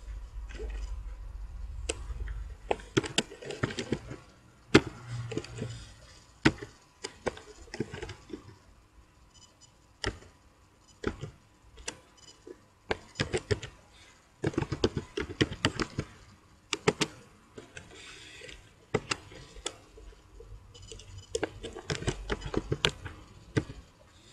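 Computer keyboard keys clacking in irregular bursts of typing, with short pauses between the bursts.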